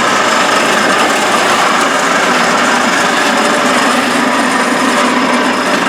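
Gravel recovery plant running: a steady, loud rattling rush of wet gravel moving through the machinery, with a faint steady machine hum underneath.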